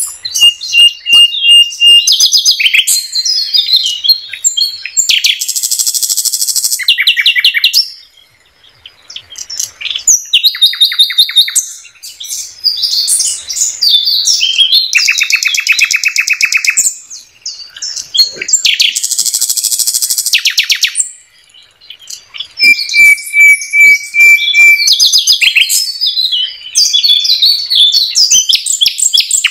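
Nightingale (sikatan londo) singing a varied, loud song. Phrases alternate between long pure whistles held on one note (near the start and again about three-quarters through), fast rattling trills and runs of repeated notes, with brief pauses between phrases.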